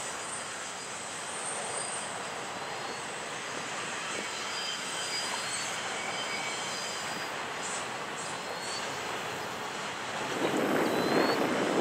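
BNSF double-stack intermodal train's well cars rolling past on jointed track, a steady rumble of wheels on rail that grows louder in the last second or so.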